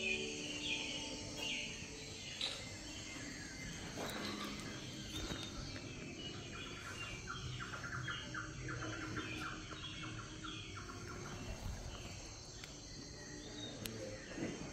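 Birds chirping and calling over and over, with insect-like trilling underneath.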